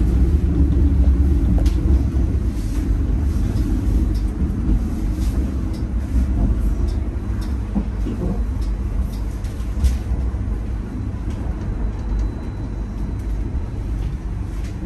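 Steady low rumble of a vehicle in motion, with faint clicks and rattles over it.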